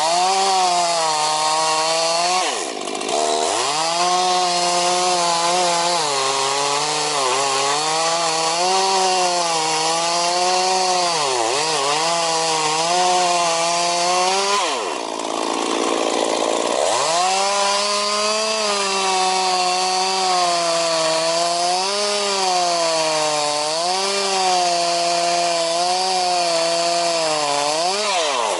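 Chainsaw cutting a thick fallen tree trunk, its engine note sagging and recovering as the chain loads up in the cut. Twice it drops back off full revs, briefly about 3 s in and for a couple of seconds around 15 s in, then revs up again.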